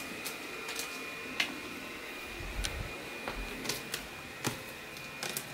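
Quiet room with a steady, faint high-pitched whine and light, irregular clicks and taps, about eight of them.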